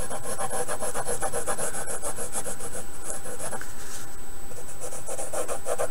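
Graphite pencil scratching on paper in quick, repeated back-and-forth strokes as drawn lines are thickened, with a short pause about four seconds in.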